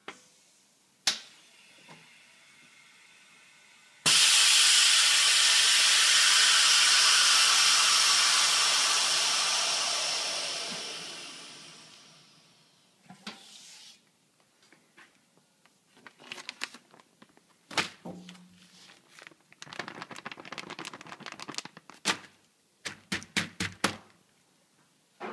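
Henkelman Boxer 42 chamber vacuum packer ending its cycle: a sharp click about a second in, then air hissing back into the chamber, starting suddenly about four seconds in and fading away over some eight seconds as the pressure evens out. After that come scattered clicks, knocks and plastic crinkling as the lid is opened and the sealed bag is handled.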